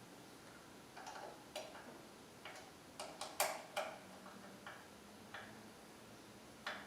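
Light, irregular clicks and knocks of metal parts and hand tools being handled during assembly of a portable bandsaw table. They come faster around the middle, where the loudest knock falls, and there is a last one near the end.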